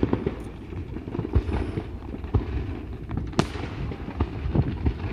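Fireworks display: a run of sharp cracks and pops from bursting shells and crackling effects, the loudest crack about three and a half seconds in, over a continuous low rumble.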